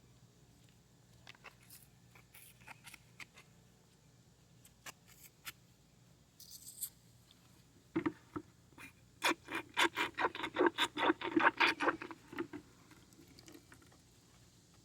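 A lawn mower carburetor's rubber primer bulb being pressed over and over underwater in a bucket of soapy water, a quick run of squelching, sloshing pulses several a second that flushes out the bulb and its passages. It is preceded by scattered light scrapes and clicks of parts being handled in the bucket.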